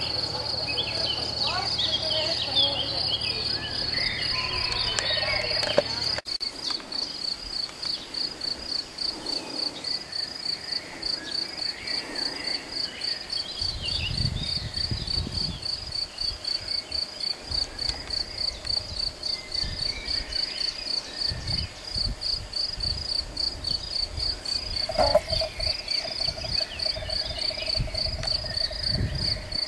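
A cricket chirping steadily in an even, high-pitched pulse, several chirps a second. Birds call over it for the first few seconds.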